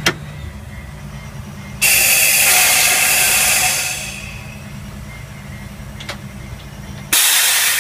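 Detroit Diesel engine of a Budd RDC railcar running steadily with a low hum, heard from inside the car. About two seconds in, a loud hiss starts suddenly and dies away over the next two seconds; near the end the engine hum drops out and another loud hiss starts abruptly.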